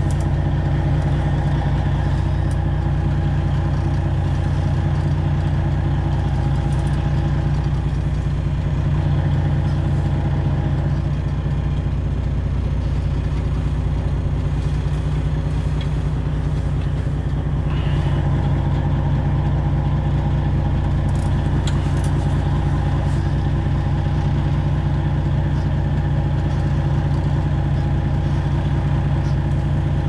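Semi truck's Detroit Diesel 12.7-litre Series 60 engine idling steadily with a low, even drone while the truck is manoeuvred at a loading dock.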